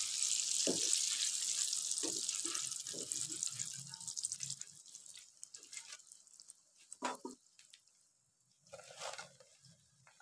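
Battered okra sizzling as it deep-fries in hot oil in a wok. The sizzle dies away over the first five seconds as the fried batch is lifted out of the oil with a wire skimmer. Scattered knocks of the spatula and skimmer against the wok, the sharpest about seven seconds in.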